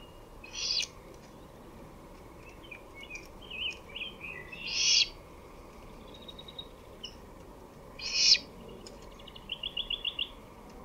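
Great horned owl giving a harsh, raspy call three times, about four seconds apart. Small songbird chirps sound in between, and a quick trill of about seven notes comes near the end.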